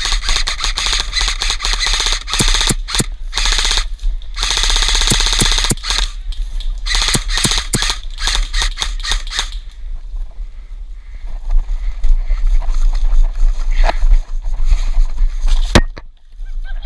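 Airsoft guns firing in long runs of rapid shots for the first nine seconds or so, with short pauses between bursts, then only scattered single shots.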